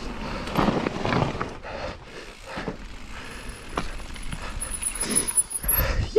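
Mountain bike rolling down a gravel forest road: tyres crunching over the stones and the bike rattling over small bumps, with wind on the handlebar-mounted microphone.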